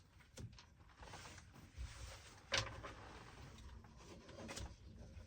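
A few light knocks and clicks from playing cribbage at a table, pegs and cards being set down, over a low steady hum. The loudest knock comes about two and a half seconds in, with smaller ones near the start and near the end.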